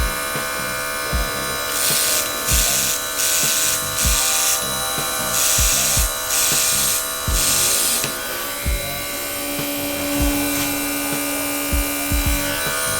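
Small cordless airbrush compressor running with a steady motor whine, while the airbrush gives about six short hissing bursts of spray between about two and eight seconds in, with a few soft bumps.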